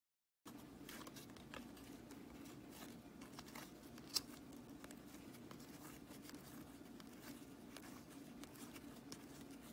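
Faint flicking and rustling of a stack of hockey trading cards being leafed through by hand, with one sharper card snap about four seconds in, over a faint steady hum.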